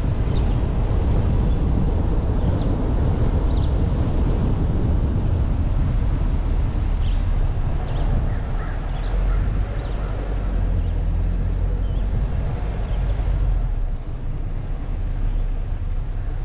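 Car driving slowly with low road and wind rumble on the microphone. The rumble eases near the end as the car pulls into a parking space.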